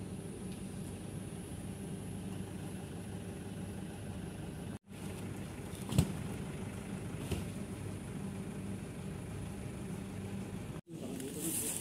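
Cargo truck engine idling steadily, with one sharp knock about halfway through. The sound drops out for an instant twice.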